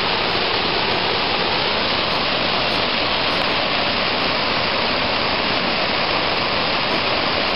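A large multi-tiered waterfall rushing over rock ledges, an even, unbroken noise of falling water.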